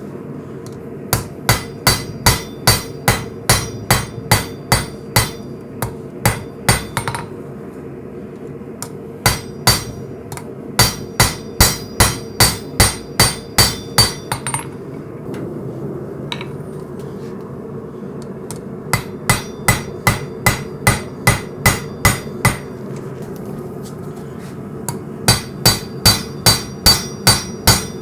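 Hammer striking hot coil-spring steel on an anvil while forging the blade's bevels. The blows come in four runs of two to three a second, with pauses between runs, and some of them ring. A steady hum runs underneath.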